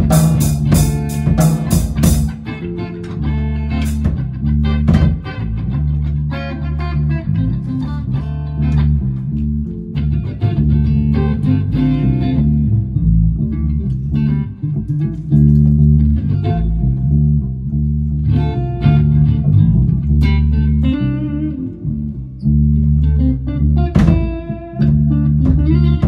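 Electric guitar and bass guitar playing together through amplifiers, with the bass notes carrying underneath. The guitar is a Gear4Music LA Select SSS Strat-style guitar played through a Korg AX1G modelling pedal into a FoxGear Tweed 55 amp. A few sharp ticks sound in the first two seconds.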